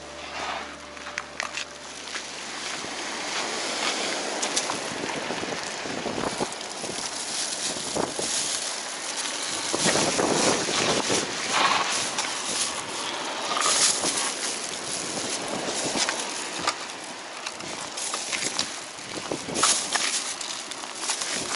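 Wind buffeting the microphone, with irregular rustling and crackling as plastic bags and litter are handled.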